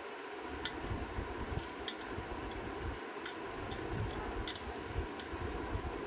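About ten light, irregular metal clicks of tweezers catching on the lead wires and the hollow shaft of a ceiling fan motor as the wires are worked out through the shaft, over steady low background noise.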